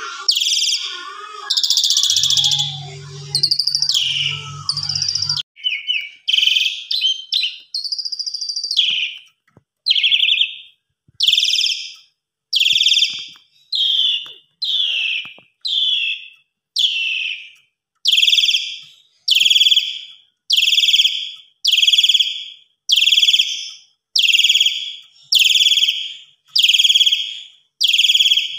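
Javan pied starling (jalak suren) singing loudly. For the first five seconds it gives a varied run of calls over a low hum. Then it repeats one short, harsh whistled note over and over, a little more than once a second.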